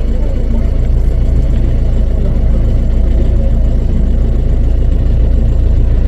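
Safari vehicle's engine running with a steady low rumble, heard from inside the vehicle.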